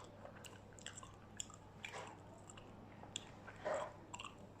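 A person chewing and biting crispy fried food with small wet mouth clicks and crackles, and a louder crunchy bite a little before the end.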